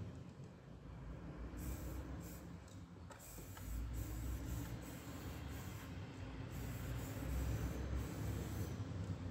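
Aerosol spray paint can hissing in a run of short and longer bursts, starting about one and a half seconds in, over a steady low rumble.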